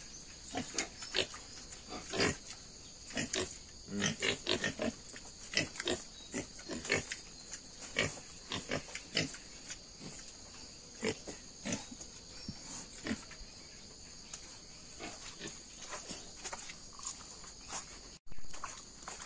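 Pigs grunting, many short grunts at uneven intervals.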